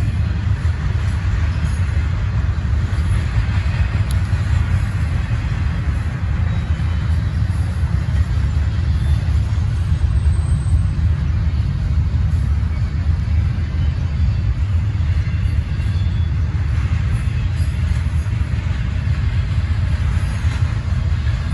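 Double-stack intermodal container cars rolling past on the rails, a steady low rumble of wheels and trucks on the track.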